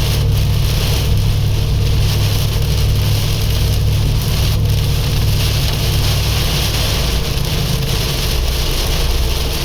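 Supercharged Mazda Miata's engine running at a steady pitch, with loud wind and road noise over it; no revving or gear changes.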